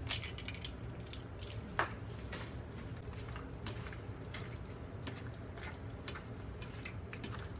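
Hands mixing cubes of raw pork with a beaten-in egg in a stainless steel bowl: soft wet squishing with light irregular clicks, and one sharper click about two seconds in.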